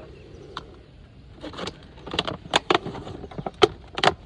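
Irregular sharp taps and knocks over a low steady background, quiet at first and then coming thick and fast after about a second and a half.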